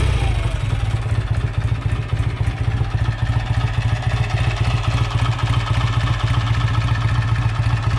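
BSA A65 Lightning's 650 cc parallel-twin engine running at a steady idle just after a first-kick start, fresh from a full rebuild. It has an even, unbroken beat.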